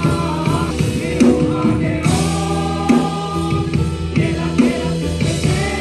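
Live gospel worship song: a group of singers over instrumental backing with steady bass notes and regular drum hits.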